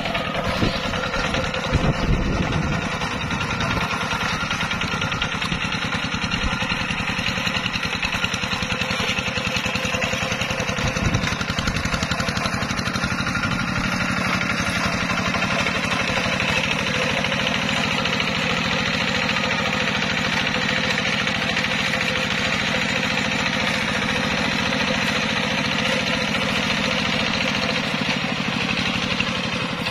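Single-cylinder diesel engine of a two-wheel hand tractor running steadily under load as its cage wheels churn through a flooded rice paddy, with a few louder surges near the start and about eleven seconds in.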